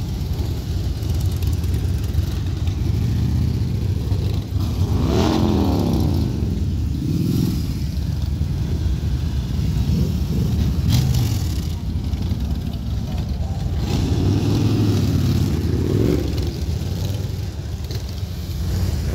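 A column of mostly Harley-Davidson V-twin motorcycles riding slowly past one after another, engines rumbling together. Several bikes come close enough to stand out, their engine note sweeping up and falling away as each goes by, about a second in from the fifth second, again near seven, eleven and fifteen seconds.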